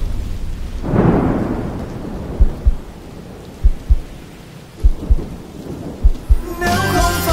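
Dramatic film-style sound effects: a low rumble swells about a second in, then come slow pairs of deep thumps like a heartbeat, four pairs about a second apart, over rain. Music comes in near the end.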